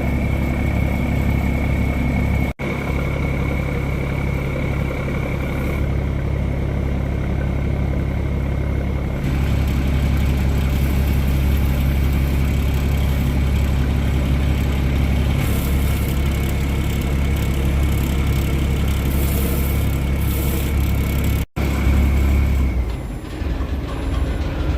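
Boat engine running steadily: a loud low hum with a thin high whine above it. It breaks off for an instant twice and eases down near the end.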